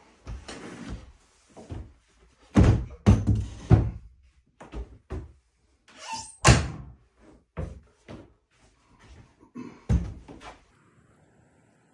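Wooden cabinet door panels being lifted, moved and set against a wooden cabinet frame: a string of wooden knocks and thumps. The loudest come in a cluster about three seconds in, then one around six and a half seconds, then a last one near ten seconds.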